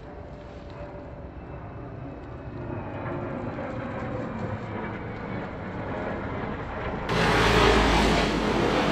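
Jet fighter's engine rumbling overhead, a steady roar that slowly grows louder. About seven seconds in it abruptly becomes much louder and fuller.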